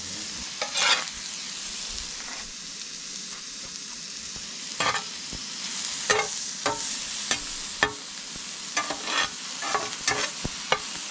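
Slices of SPAM frying in a pan with a steady sizzle, while a cooking utensil scrapes and knocks against the pan many times, more often in the second half.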